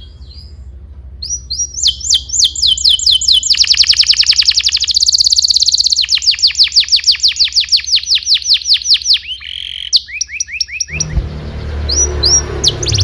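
Canary singing a long song of rapid trills: runs of quickly repeated falling notes, with a faster rolling passage in the middle and a short break near the end.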